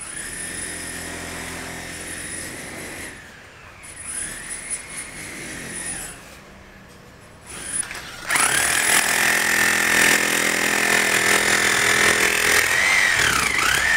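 Electric power tool motor whining in three runs, spinning up and winding down each time; the third run, from about 8 s, is the loudest, and its pitch dips twice near the end.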